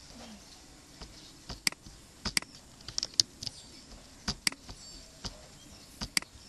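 Computer mouse clicking: about a dozen short, sharp clicks at uneven intervals, some in quick pairs.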